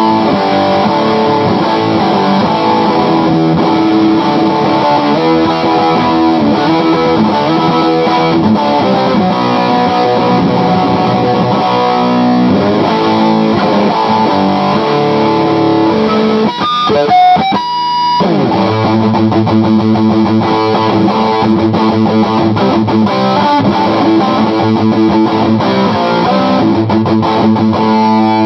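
Electric guitar played through a Bell & Howell Filmosound tube amp modified with some Bassman circuitry, turned all the way up, with chords and single-note lines throughout. A brief louder run of high notes comes about two-thirds of the way through.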